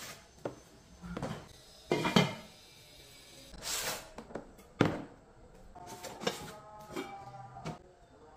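Cardboard cookware boxes being opened and handled: flaps and packaging scraping, with several sharp knocks. Over the last couple of seconds a saucepan and its glass lid clink and ring briefly.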